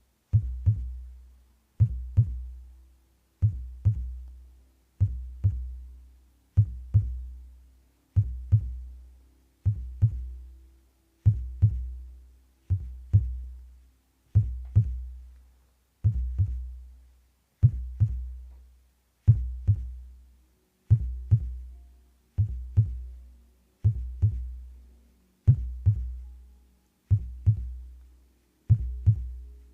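Slow, steady heartbeat: deep double thumps (lub-dub) repeating about every one and a half seconds.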